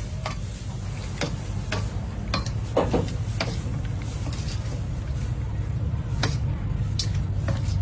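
Scattered sharp clinks and knocks of cooking utensils, about one a second with a gap in the middle, over a steady low rumble.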